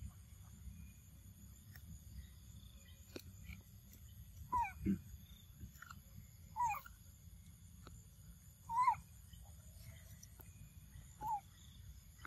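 A baby macaque calling: about five short squeaky calls, each bending in pitch, the loudest a little before the nine-second mark.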